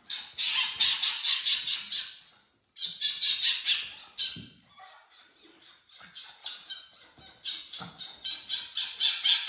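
Male eclectus parrot squawking in rapid, harsh runs of calls, in three bouts, with a pause of a few seconds before the last.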